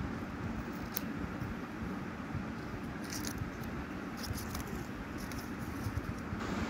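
Metal scissors snipping through paper, a few short crisp cuts and rustles, with most of them coming in the second half, over a steady low background rumble.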